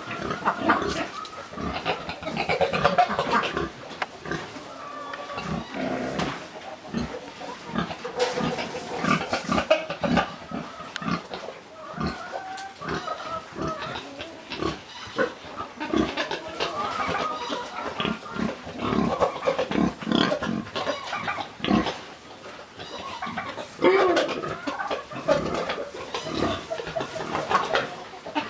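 Pigs grunting and squealing, many short calls overlapping one another.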